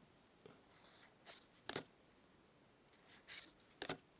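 Stiff collector's cards being taken one at a time off the top of a small hand-held stack and laid down on a table: a soft sliding rub followed by a light tap, twice, about two seconds apart.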